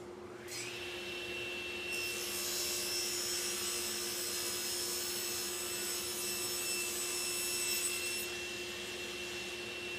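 SawStop table saw spinning up with a short rising whine, then its blade ripping a taper through a board screwed to a carrier board, a loud hiss of cutting for about six seconds over the motor's steady hum. The saw then runs free with no wood in the blade.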